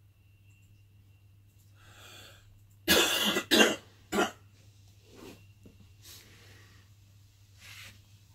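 A person coughs three times in quick succession about three seconds in, over the steady low hum of a running VALUE vacuum pump.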